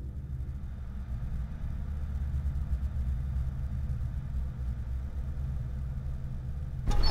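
Horror-film sound design: a low, steady rumbling drone that slowly swells, then a sudden loud hit with a ringing high tone near the end, a jump-scare sting.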